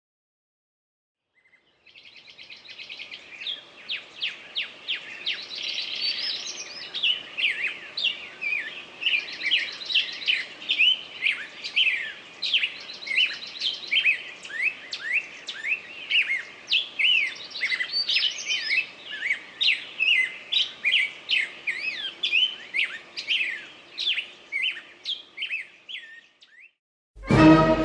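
Songbirds singing: a dense run of quick, high chirps and short rising and falling whistles. It starts about two seconds in and stops abruptly shortly before the end.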